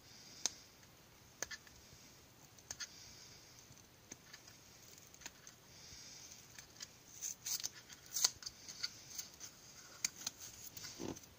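Light clicks and short plastic rustles and crackles of hands handling a plastic battery charger and a thin white strip, growing busier and louder about seven seconds in.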